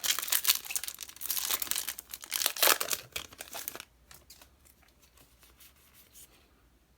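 Foil booster-pack wrapper being torn open and crinkled, a dense crackling for about four seconds, then only faint light rustling.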